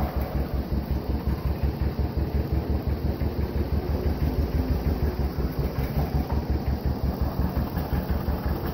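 John Deere 720 diesel two-cylinder tractor engine idling with a steady, even chugging beat.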